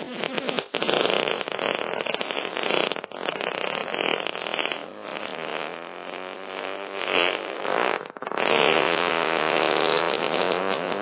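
Fart sound effects, one long fart sound after another. There are brief breaks just under a second in, about three seconds in and about eight seconds in.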